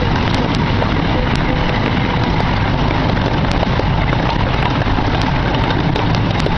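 16-inch-gauge gasoline-powered miniature park train running along its track: a steady rumble from the open cars, with frequent irregular clicks and clacks from the running gear.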